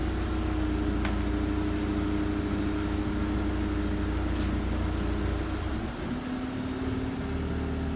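Truck-mounted crane's engine and hydraulics running steadily under load as it lifts a heavy tree, a continuous hum over a low rumble. The note drops lower about six seconds in.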